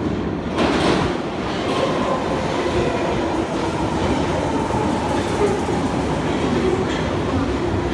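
London Underground tube train running into a deep-level platform from the tunnel. The noise rises sharply about half a second in as it arrives, then holds as a steady rumble and rattle with a thin whine over it as the carriages pass.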